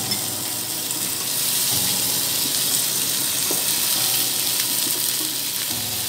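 Tofu and meatball skewers sizzling steadily on a hot ridged grill pan as more skewers are laid down.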